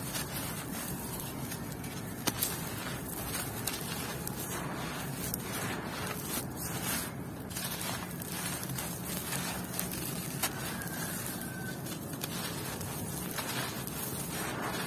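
Hands crushing moulded lumps of dry, gritty red dirt, with a continuous crunchy crackle as the grains and pebbles break apart and trickle down onto loose dirt.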